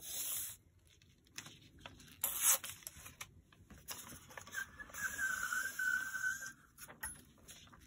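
Hand-handling sounds: a picture frame, bubble wrap and a roll of gummed brown paper tape being moved about, giving short rustles and scrapes. About halfway through comes a longer rasping drag of about two seconds with a steady thin whistle-like tone in it.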